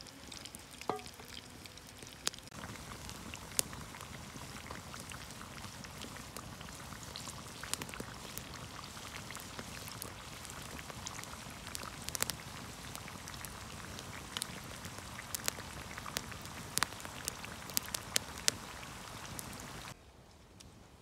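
Chips cooking in a pot over a campfire: a steady bubbling hiss with frequent sharp pops and crackles. It drops suddenly to a fainter hiss near the end.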